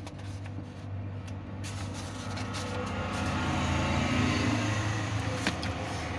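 A steady low engine-like hum, joined by a broad rushing noise that grows louder from about a second and a half in, with a few light rustles of paper pages being turned.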